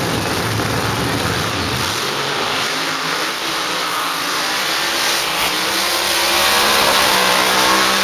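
A drag-racing funny car's engine at full throttle as the car launches down the strip. Its dense low rumble gives way after about two seconds to a rising engine note.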